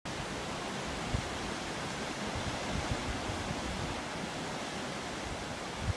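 Ocean surf washing steadily onto a rocky shore, with wind buffeting the microphone in a few short low thumps.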